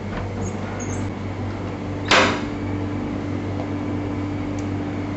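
A sharp click from the shielded hot cell and its chemistry module about two seconds in, over a steady machine hum. Right after the click a second, slightly higher steady hum joins and keeps going.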